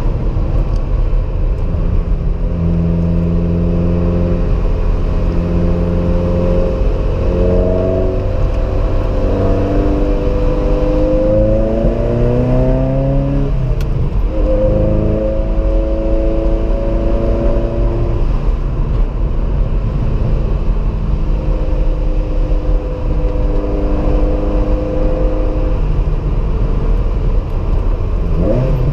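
The 1986 Ferrari 328 GTS's 3.2-litre V8 is heard from inside the cabin while driving. The engine note climbs steadily under acceleration for several seconds and drops sharply at an upshift about halfway through. It then holds a steady cruising note, with a brief rise near the end, over a constant low road rumble.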